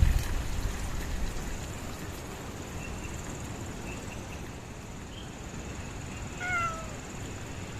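A cat meowing once, a short call that falls in pitch, about two-thirds of the way in, over steady background noise.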